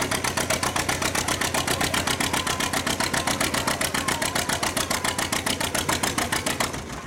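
John Deere Model A two-cylinder engine pulling a sled under load, firing in the fast, even popping beat of a two-cylinder John Deere. The beat stops abruptly just before the end.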